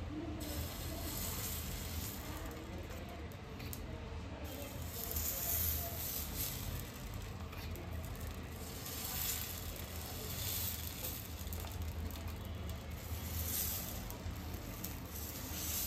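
Dosa batter sizzling as it is drizzled from a spoon onto a hot griddle, a steady hiss that swells and eases every second or two over a low steady hum.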